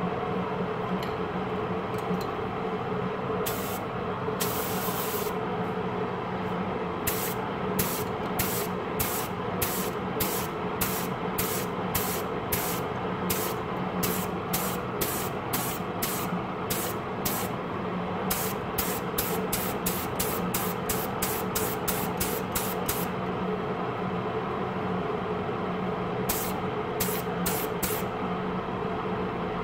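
Wood lathe running with a steady hum, while a string of short hissing bursts comes about twice a second, stopping for a few seconds near the end.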